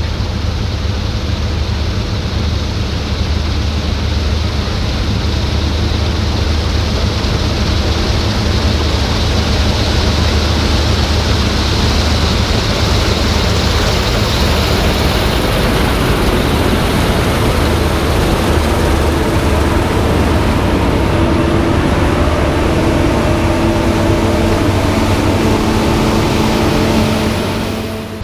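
Claas Lexion 650 combine harvester running: steady engine and machinery noise with a strong low hum and a hiss across the upper range, easing off slightly about a second before the end.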